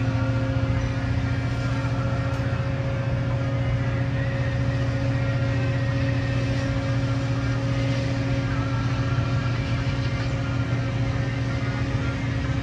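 Sounder commuter train's EMD F59PHI diesel locomotive running steadily: a constant low engine hum with a steady tone.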